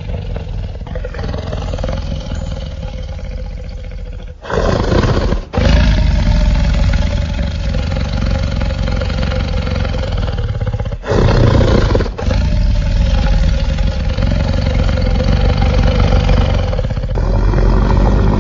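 Allosaurus dinosaur sound effects: long, deep roars one after another, each held for several seconds, with short breaks between them.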